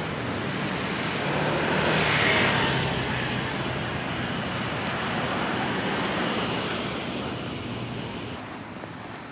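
A car driving past on a city street, swelling to its loudest about two seconds in and then fading, over steady street traffic noise.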